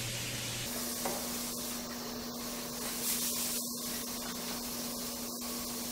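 Airbrush air hissing steadily, with a low steady hum underneath.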